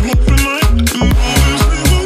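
Background music with a steady dance beat and heavy bass.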